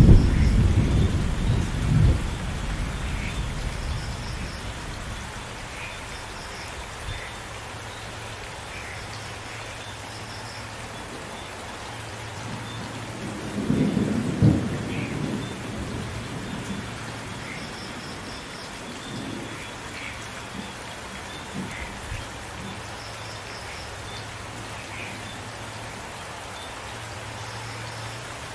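Steady rain with thunder: a low rumble fading away over the first few seconds, a louder roll of thunder about 14 s in, and fainter rumbles around 20 s.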